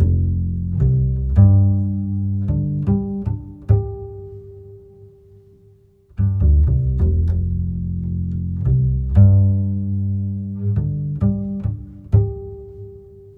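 Background music: a tune of plucked low string notes that fades out, then starts the phrase again about six seconds in.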